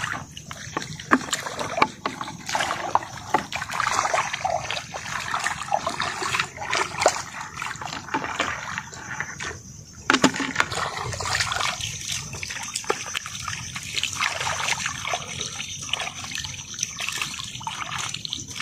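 Shallow water splashing and sloshing in uneven bursts, with scattered small clicks and knocks.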